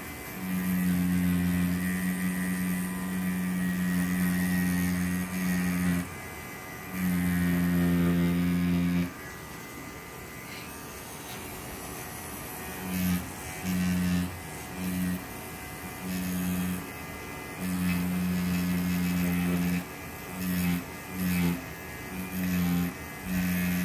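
Pen-style rotary tattoo machine buzzing as it lines designs on synthetic practice skin, switched on and off: a few long runs of several seconds, then, from about halfway, many short bursts of about half a second each.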